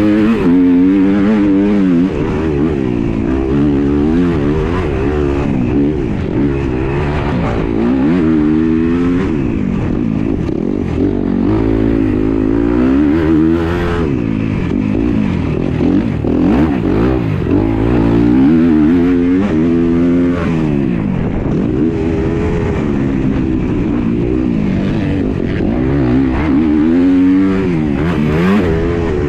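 Off-road dirt bike's single-cylinder engine, heard close up from on the bike while it is raced, revving up and down continuously. The pitch climbs and drops again and again as the throttle is opened and shut through corners and gear changes.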